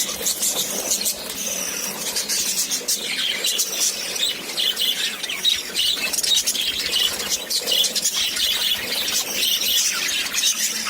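Budgerigars chirping and chattering without pause: a dense stream of short, high, squeaky chirps.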